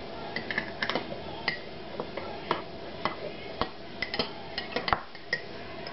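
A spoon clinking against crockery while honey is spooned and stirred into tea: a string of light, irregular clicks, about three a second.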